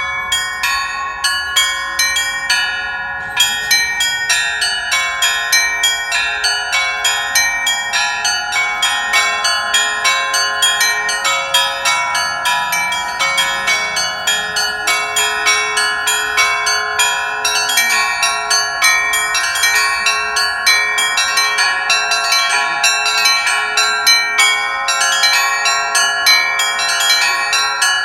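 Church bells being rung: several bells struck in quick succession, about three strikes a second, over the overlapping hum of the larger bells that keep sounding.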